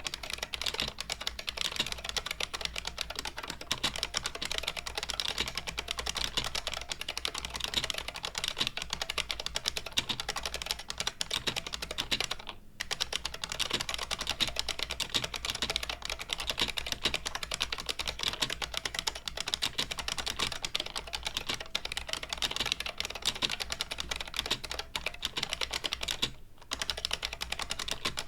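IBM Model M buckling-spring keyboard, spray-lubricated, being typed on steadily with rapid clicky keystrokes. The typing stops briefly twice, a little under halfway and near the end.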